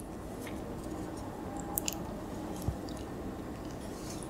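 Close-miked ASMR eating of Yupi gummy pizza candy: soft wet squishes and mouth clicks as the gummy slices are bitten and chewed. There is a small cluster of clicks about two seconds in and another just under three seconds in.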